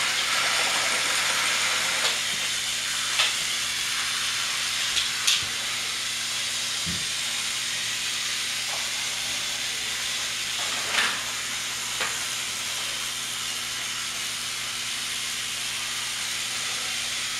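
A steady hiss with a faint hum under it, broken by a few light clicks and knocks.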